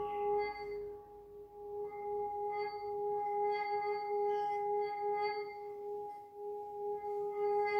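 Small handheld singing bowl sung by circling a wrapped mallet around its rim: a continuous ringing hum with a low tone and a second, higher tone, wavering in loudness, with fainter high overtones coming and going.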